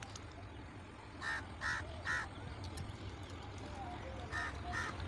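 Crow cawing: three short harsh caws, then three more about three seconds later, over a low steady rumble.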